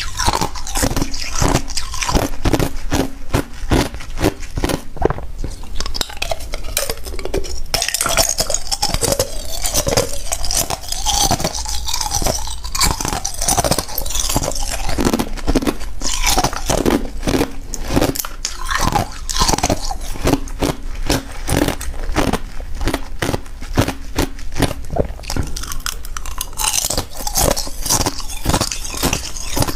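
Thin discs of ice bitten and chewed close to a clip-on microphone: a continuous run of sharp, brittle crunches, several a second.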